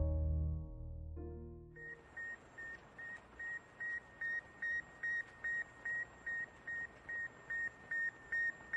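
Soft piano music fades out in the first two seconds; then a high electronic beep repeats rapidly, about three beeps a second, over a faint hiss, slowly getting louder.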